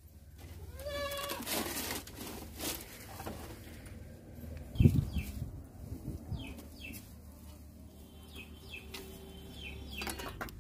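A goat bleats once, briefly, about a second in, followed by a few knocks and a loud low thump near the middle. Through the second half, small birds chirp in short, falling notes over a steady low hum.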